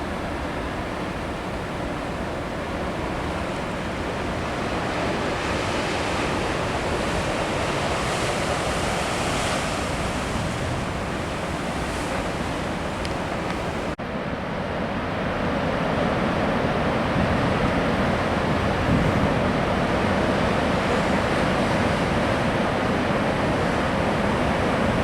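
Ocean surf washing in steadily on a rocky coast, with some wind. The sound breaks off abruptly about halfway through and comes back louder and fuller.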